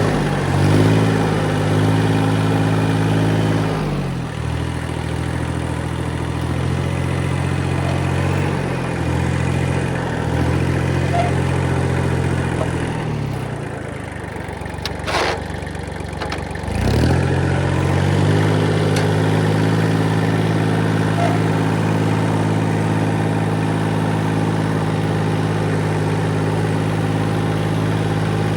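Kubota diesel engine running under load, its speed dropping and picking up again several times, then holding steady at high revs for the last ten seconds or so. A brief sharp squeak sounds about halfway through.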